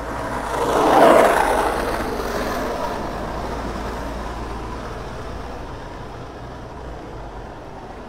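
City bus driving past close by, its sound swelling to a peak about a second in and then slowly fading as it moves away, over a steady hum of street traffic.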